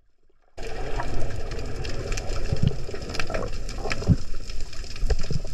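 Underwater water noise: a steady rushing hiss with many scattered clicks, starting abruptly about half a second in after near silence.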